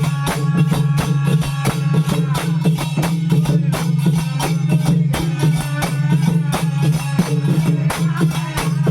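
Bhajan music: devotional singing over a steady low drone and a fast, even percussion beat.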